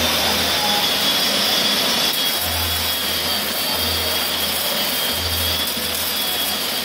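MIG welding with CO2 shielding gas: the wire-fed arc crackling and hissing steadily.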